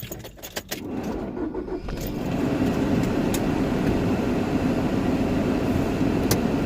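A few clicks and rattles like keys, then the SUV's engine starts about two seconds in and runs steadily.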